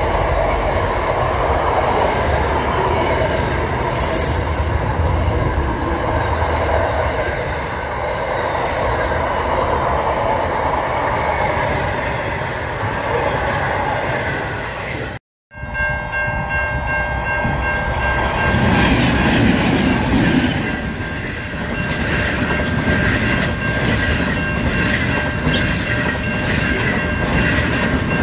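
A freight train of container wagons rolls steadily past at close range. About halfway through, the sound cuts out for a moment, and a stainless-steel passenger train is heard going by, with steady high ringing tones over its rumble.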